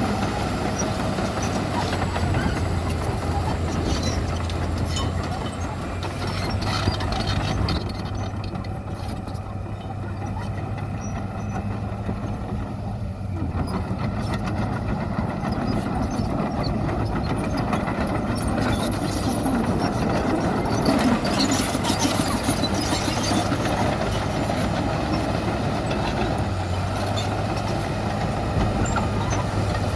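Heavy diesel earthmoving machinery running steadily, the engine of a bulldozer or dump truck working, with a constant low engine hum.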